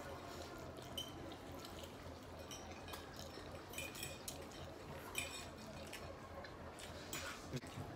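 Faint eating sounds: a man slurping and chewing spaghetti, with a fork clinking and scraping on a plate in short clicks every second or so as he twirls more pasta.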